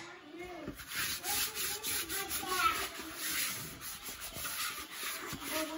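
Hands rubbing and scraping flour-tortilla dough against a granite countertop: a string of gritty, rasping strokes.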